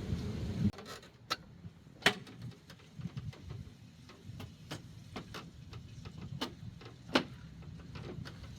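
Scattered sharp clicks and knocks of plastic trim parts being handled and fitted, as a truck grille with plastic retaining clips goes back on; a rustle of handling stops under a second in, and the loudest knocks come about a second, two seconds and seven seconds in.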